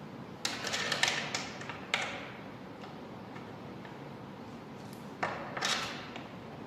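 Light metal clicks and rattles as oil pan bolts are handled and set into the pan flange by hand. They come in two short bursts, one from about half a second to two seconds in and another a little after five seconds.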